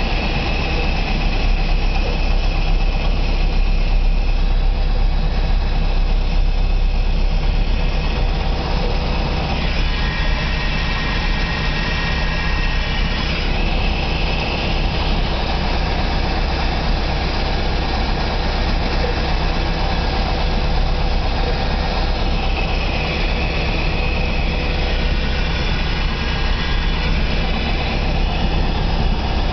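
Small plane's engine running steadily at low power as the aircraft taxis after landing.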